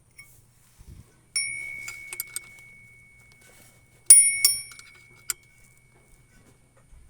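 Metal clinking: a metal object is struck and rings with a clear high tone that fades over a few seconds. It is struck twice more in quick succession about four seconds in, with a few lighter clicks.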